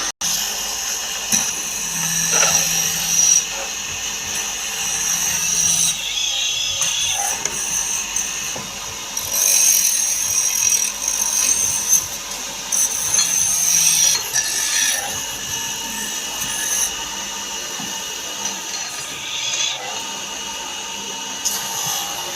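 A power tool working wood: a steady high whine and scraping that shifts every few seconds as the tool bites, with a low hum coming and going.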